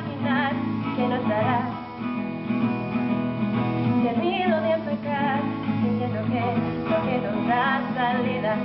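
Acoustic guitar strumming with a voice singing over it.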